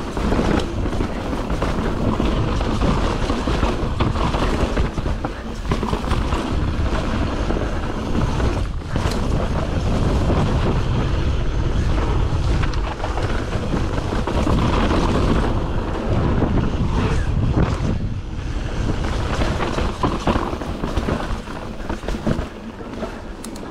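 YT Jeffsy full-suspension mountain bike descending a rocky dirt trail: a steady rumble of tyres over dirt and rock, with the bike rattling over the bumps and wind buffeting the microphone. It eases off near the end.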